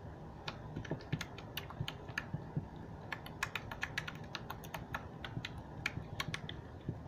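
Fingers squishing and kneading a dark green glitter slime, making a fast, irregular run of sharp sticky clicks and pops that starts about half a second in.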